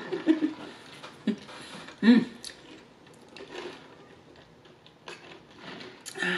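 A few soft mouth and handling clicks close to the microphone, with one short breathy vocal sound about two seconds in.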